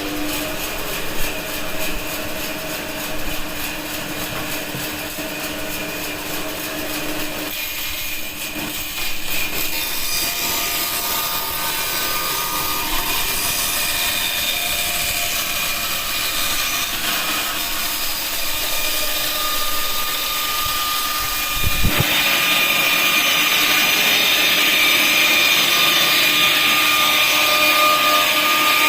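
Circle-cutting band saw running with a steady motor hum and sawing wood. About 22 seconds in there is a knock, and the sound then grows louder and hissier.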